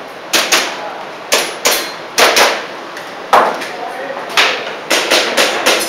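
Airsoft pistol shooting a stage: a string of sharp shots, many in quick pairs, with BBs clanging and briefly ringing off metal targets.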